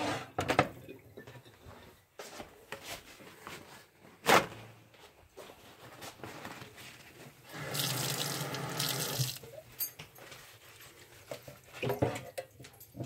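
Kitchen tap running for under two seconds, about halfway through, into a sink holding a cast iron grill pan. Scattered knocks of the pan in the sink, with a sharp one about four seconds in.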